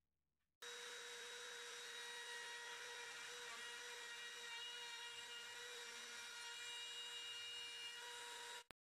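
Wood router motor running at a steady speed, a faint, even whine that starts suddenly about half a second in and cuts off just before the end.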